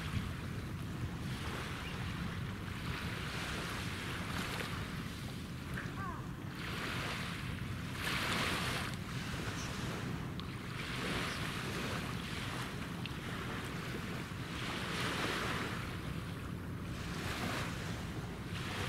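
Low, steady drone of the Towada-class supply ship's diesel engines carrying across the water, with waves washing against the shore in repeated surges every couple of seconds.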